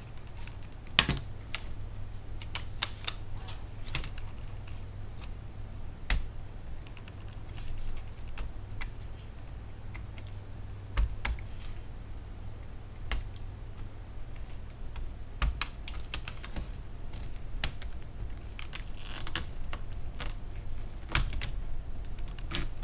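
Scattered small plastic and metal clicks and taps as the parts of an opened Asus Eee T91 netbook are handled, the battery lifted and its connector worked, over a steady low hum.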